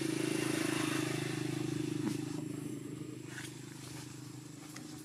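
A vehicle engine running with a steady hum, loudest in the first couple of seconds and then slowly fading.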